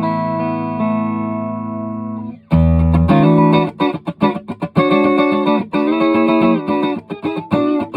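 Electric guitar, a Stratocaster, played through a Free The Tone SC-1 Silky Comp compressor pedal into a Vox AC30 amp. A held chord rings out with long, even sustain and is cut off about two and a half seconds in. Then come a low note and a run of short, choppy chords and single notes.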